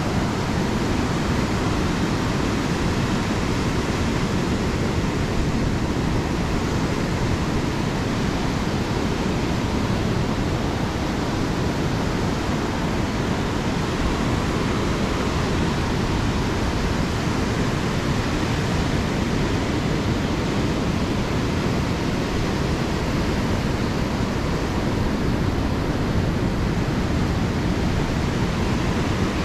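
Steady rush of ocean surf mixed with wind rumbling on the microphone, even and unbroken throughout.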